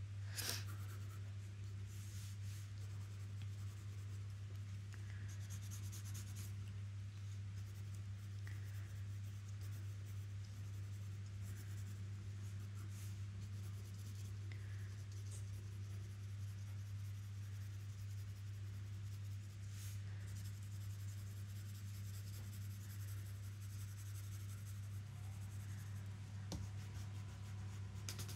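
Graphite pencil scratching across paper in short sketching strokes, over a steady low hum.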